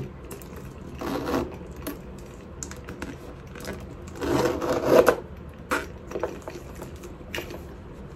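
Metal double zip of a Louis Vuitton Alma BB being slid along its track: a short zipping stroke about a second in and a longer one around four to five seconds in, with light clicks of the zip pulls between.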